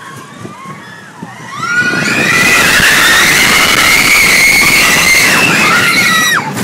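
Several riders screaming together on a mine-train roller coaster over the rumble and rattle of the ride. The screams rise in about a second and a half, are held for about five seconds, and fall away near the end.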